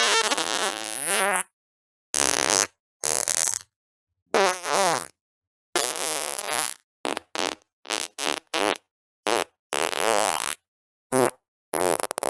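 A rapid string of fart sounds, more than a dozen in all: a few long ones with a wavering, bubbling pitch and many short pops. Each cuts off abruptly into dead silence before the next.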